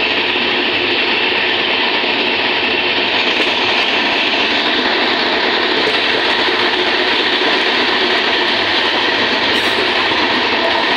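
Passenger train running along the track, a loud, steady noise of wheels and carriage without a break.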